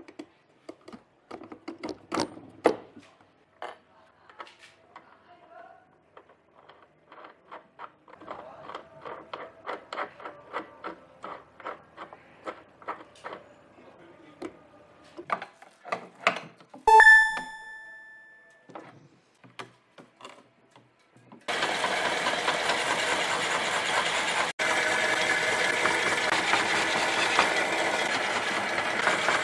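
Hand work on wood: light knocks and taps, coming quicker and more regularly in the middle, then a short ringing tone a little past halfway. About three quarters of the way through, a power tool starts abruptly and runs steadily and loudly.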